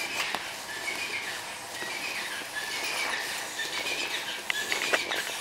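A West Highland White Terrier's paws scraping and digging in loose dirt, with a few sharper scrapes near the end. A bird repeats a short high chirp about every half second.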